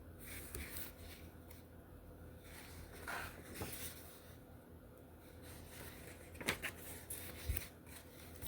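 Faint paper rustles and a few light knocks of a paperback coloring book's pages being handled and turned, scattered over several seconds.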